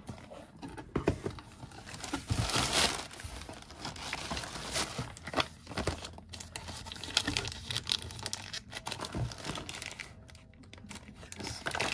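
Plastic packaging crinkling and rustling in irregular bursts, busiest about two to three seconds in, as a plastic poly mailer is handled among plastic air pillows in a cardboard shipping box.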